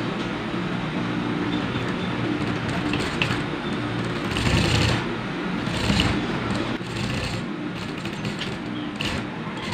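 Sewing machine running steadily as fabric is stitched through it, with a steady motor hum. It grows louder for a moment about four and a half seconds in and again around six seconds.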